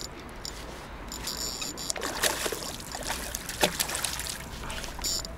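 Water splashing and sloshing as a slingshot-shot carp is hauled in through the shallows, with a few sharper splashes from about two seconds in.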